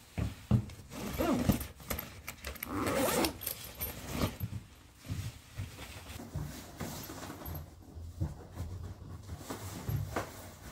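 Rustling of a quilted puffer jacket being put on and zipped, mixed with footsteps and small clicks and knocks. The run of rustles and clicks is busiest in the first few seconds, then thins out.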